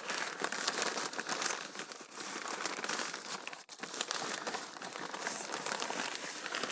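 Plastic postal satchel and bubble wrap crinkling and rustling as they are handled and pulled apart: a dense run of small crackles, with a brief pause a little past halfway.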